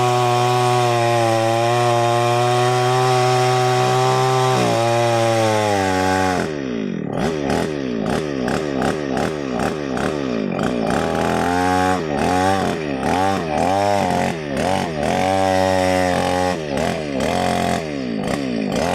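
New West 568 two-stroke chainsaw running steadily at high speed for about the first five seconds, then dropping in pitch and being revved up and down over and over until the end.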